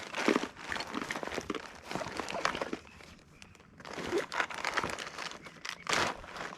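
Close, irregular crinkling and crunching, with a short lull about three seconds in.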